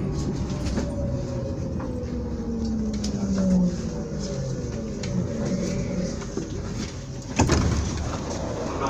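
Berlin U-Bahn train braking into a station, its traction motors whining with several tones falling in pitch over a steady running rumble. About seven and a half seconds in, a sudden loud clunk as the doors open.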